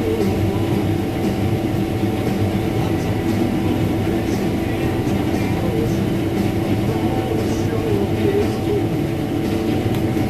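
Combine harvester running steadily through wheat, a constant heavy machine drone with steady tones and no change in speed.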